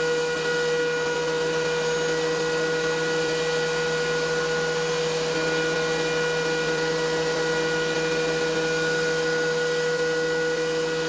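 DeWalt DW735 benchtop thickness planer running steadily at speed: a steady high whine with several fixed tones over a rushing noise, with no change in load.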